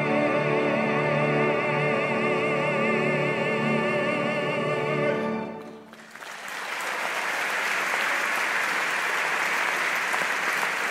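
An operatic baritone holds the final high note of the aria with a wide vibrato over the orchestra. The voice and orchestra cut off together about five and a half seconds in. The audience then breaks into steady applause, which lasts to the end.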